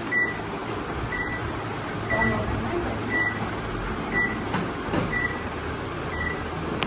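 An electronic device beeping: a short, high beep repeating about once a second over a steady low hum, with a couple of sharp clicks near the end.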